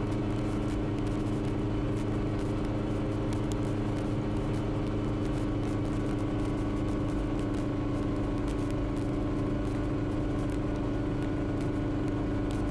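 Schweizer 300 (Hughes 269) helicopter's four-cylinder Lycoming piston engine and rotor running steadily at operating rpm, a constant drone that holds one pitch without any change in power.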